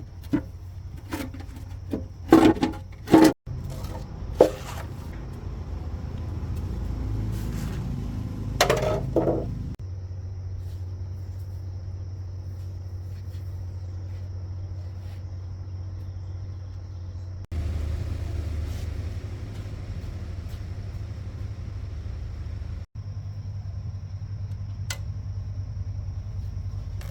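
Several sharp metallic knocks and clicks, then a steady low rumble of a running engine that cuts off and restarts abruptly a few times.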